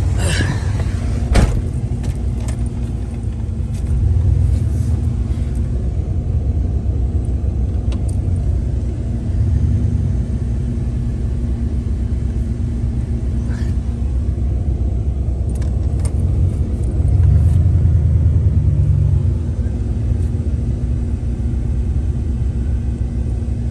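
Dodge Ram pickup's engine running, heard from inside the cab as a steady low rumble that swells a few times. A single sharp click about a second and a half in.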